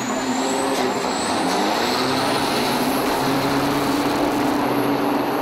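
Two diesel semi trucks accelerating hard side by side in a drag race, engines at full power, with a high whine rising in pitch over the first few seconds.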